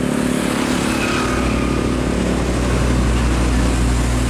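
Heavy truck's diesel engine running as it drives past, a steady low rumble over a haze of road and traffic noise.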